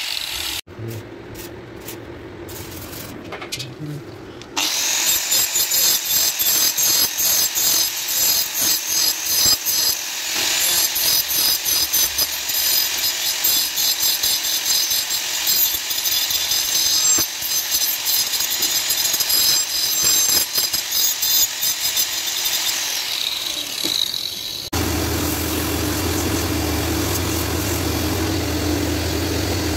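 Angle grinder with a cutting disc cutting into a wooden block, loud and uneven for about twenty seconds. Near the end it gives way to the steady hum of a belt grinder's motor running.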